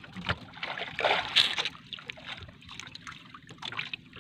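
Water lapping and splashing against the hull of a small outrigger boat at sea, in irregular soft splashes, the loudest about a second in.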